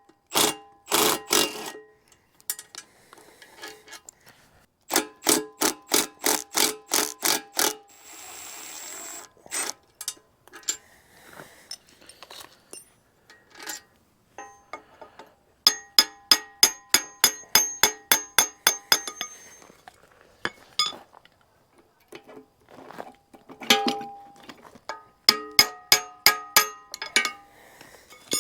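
Hammer blows on the steel bucket pins of a mini excavator, driving them out: runs of quick strikes, about three or four a second, each ringing with a metallic tone, with single blows between the runs. A brief hiss about eight seconds in.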